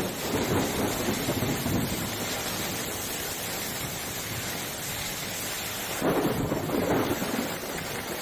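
Storm noise: heavy rain with wind, swelling louder about half a second in and again about six seconds in.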